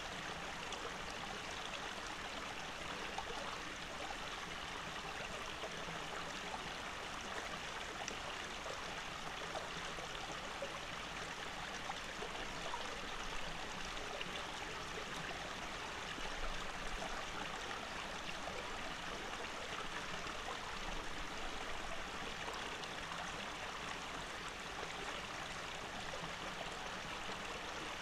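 A shallow stream running steadily over rocks, an even, unbroken sound of flowing water.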